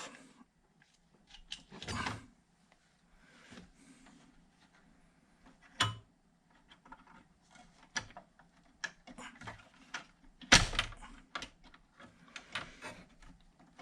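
Handling noise: scattered light clicks, knocks and rustles of things being moved about, with a louder thump about ten and a half seconds in.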